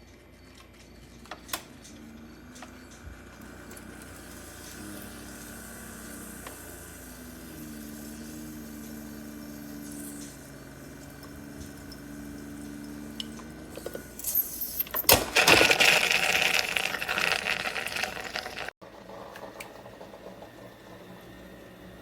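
Keurig K-Brew+Chill single-serve coffee maker brewing: a low pump hum that shifts in pitch, then a loud hissing, sputtering rush of water and air for a few seconds that cuts off suddenly.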